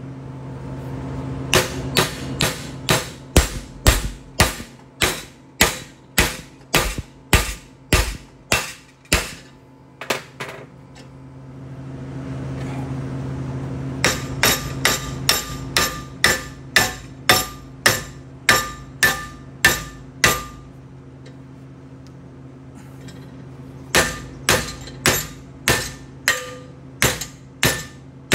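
Hammer blows on a laser-welded carbon steel joint, about two a second, in three runs with short pauses, over a steady low hum. The hammering is a strength test of the weld, which holds.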